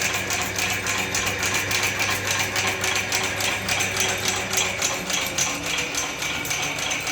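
Automatic band saw blade sharpening machine running: a fast, even clatter of grinding strokes and tooth advances over a steady motor hum.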